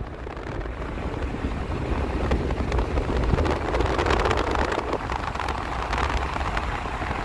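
Wind and road noise in a moving car, the wind buffeting the microphone with a steady rush and low rumble and many small crackles.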